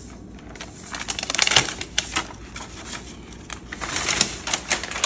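Protective wrap and its stiff end pieces being pulled off a new MacBook Pro: scattered clicks, taps and crinkling, starting about a second in after a quiet moment.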